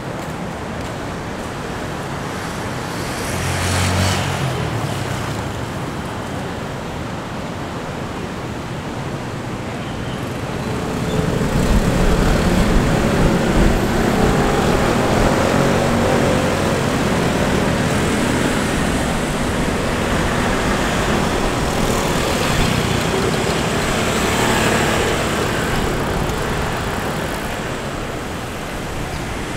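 Road traffic going by. A louder, low engine rumble sets in about a third of the way through and holds for most of the rest.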